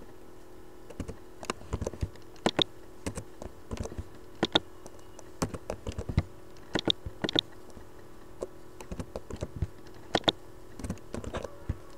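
Typing on a computer keyboard: irregular keystrokes, some in quick runs of several presses, with pauses between.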